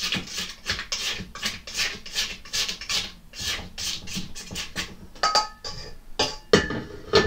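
Spatula scraping down the sides of a stainless-steel KitchenAid stand-mixer bowl in quick repeated strokes, about two or three a second, with a brief ringing tap against the metal bowl a little after five seconds in.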